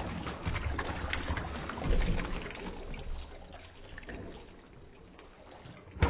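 2010 American Standard Cadet toilet flushing: water rushing and swirling down the bowl, easing off about three seconds in to a quieter trickle as the bowl drains.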